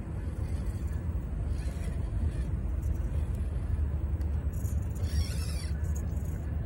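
Steady low rumble of wind buffeting the microphone, with the electric motor and gears of an RC rock crawler whirring as it crawls over tree roots; a brief higher whirr about five seconds in.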